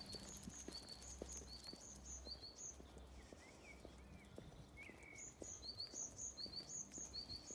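Small songbird singing a quick, repeated two-note phrase, a high note then a lower one, in two bouts with a pause between. Softer, lower chirps from another bird fill the pause.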